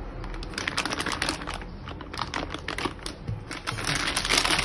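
Thin plastic bag crinkling and rustling as a spatula pushes whipped cream filling into it. There is a dense run of crackles from about half a second in.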